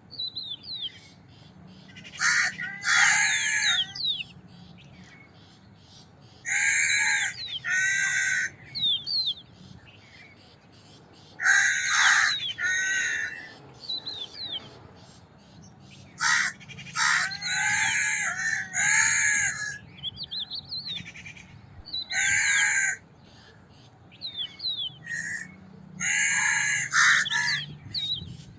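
Crows cawing again and again, each caw harsh and about a second long, coming in groups of one to three with short pauses between. Thin, high chirps from smaller birds sound in the gaps.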